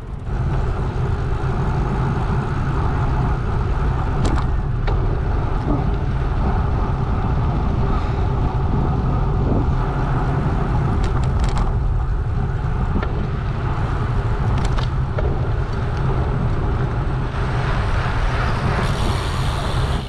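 Steady wind noise on the microphone and tyre rumble from a road bike rolling along a bike path at riding speed, with a few light clicks.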